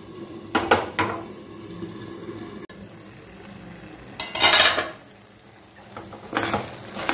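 Metal spatula scraping and knocking against a steel kadai as thick, simmering tamarind paste is stirred, with a light sizzle. There are sharp clinks about half a second and a second in, and a longer scrape around four and a half seconds.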